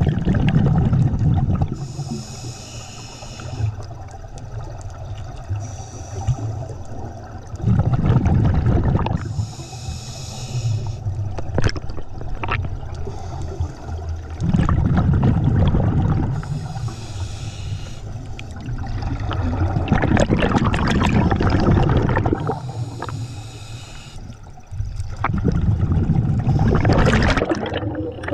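Scuba diver breathing underwater through an open-circuit regulator: a hissing inhale, then a rumbling, gurgling burst of exhaled bubbles, repeating about every six seconds, five exhalations in all.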